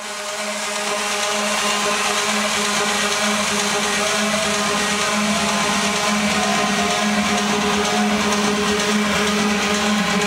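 Techno track playing loud: a noisy, distorted drone with an evenly pulsing low tone and a dense hiss on top, fading up over the first second or so.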